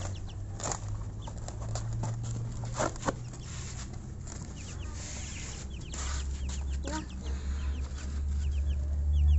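Young broiler chickens peeping in short, high, falling cheeps, mostly in twos and threes, with a few knocks and rustles. A low steady hum runs underneath and gets louder about six seconds in.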